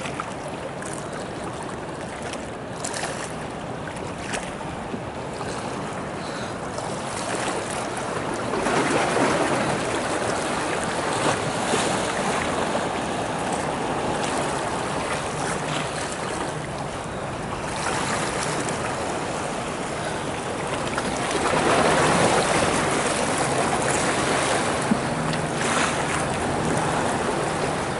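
Small ocean waves washing and splashing against shoreline rocks, surging louder twice, about nine seconds and about twenty-two seconds in.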